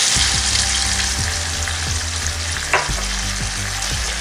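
Chicken sizzling in a granite-coated pan as water is poured into the thick, nearly dried-down masala, then stirred with a spatula that scrapes the pan. There is a single sharp tap a little under three seconds in.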